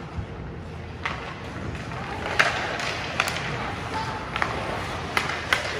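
Ice hockey skate blades scraping and carving on the ice, the scraping building from about two seconds in, with about half a dozen sharp clacks of sticks and puck.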